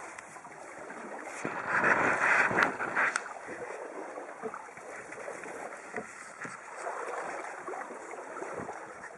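Water rushing and splashing along the hull of a 14 ft trailer sailer under sail, with wind. There is a louder surge about two seconds in.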